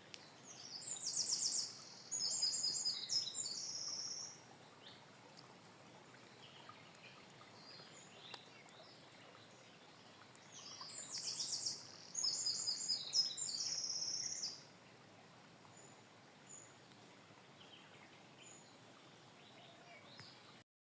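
A songbird singing the same high, fast trilled song twice, each song lasting about four seconds and the two about ten seconds apart, over faint steady background hiss.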